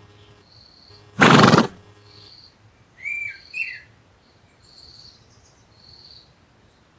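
A horse gives one loud, breathy snort about a second in. A few short bird chirps follow around three seconds in.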